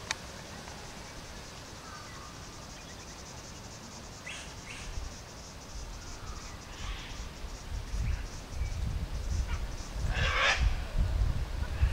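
Steady, even chirring of insects, with a few short bird chirps. From about eight seconds in, low, irregular rumbling gusts grow louder, and a short breathy rush of noise sounds about ten seconds in.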